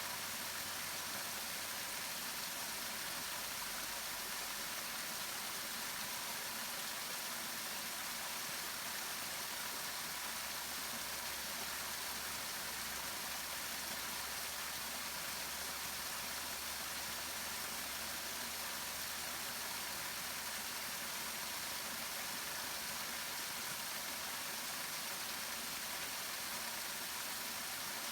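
Waterfall: falling water making a steady, even hiss that does not change.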